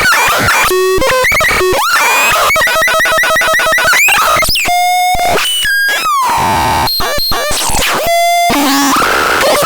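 TUTON a1 producing harsh, glitchy synthesized sounds: buzzy electronic tones that jump in pitch every fraction of a second, swoop up and down, cut off abruptly, and alternate with bursts of noise.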